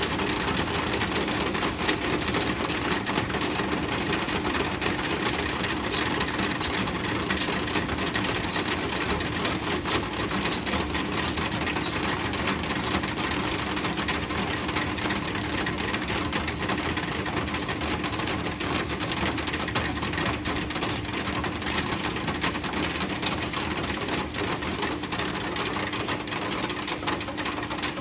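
Heavy rain falling steadily, a dense patter of drops on a hard surface, with a low steady hum underneath.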